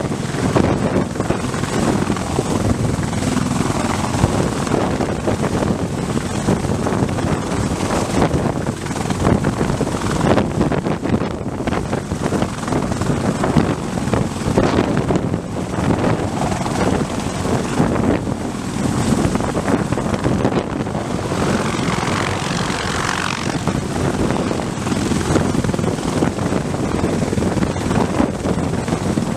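Sikorsky CH-53E Super Stallion heavy-lift helicopter hovering low overhead, a steady, loud din of rotor and engines. Its rotor downwash batters the microphone with heavy wind noise.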